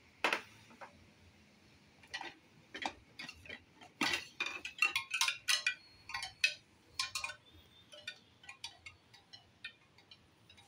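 Hollow bamboo tubes of a handmade wind chime knocking against one another as it is lifted and swung, with the clapper not yet fitted. The clacks are scattered at first, come thick and fast for a few seconds in the middle, and thin out near the end.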